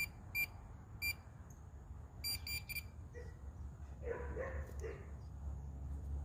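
Handheld metal-detecting pinpointer probe giving short, high-pitched electronic beeps as it is passed over a handful of dug soil: a few single beeps, then a quick run of three about two seconds in, as the tip closes on a metal target.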